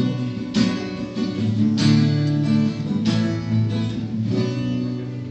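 Instrumental break of a worship song: acoustic guitar strumming sustained chords, with a strong strum about every second and a bit and no singing.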